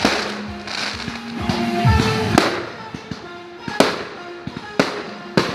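Fireworks going off: several sharp bangs amid a dense crackle of bursting shells.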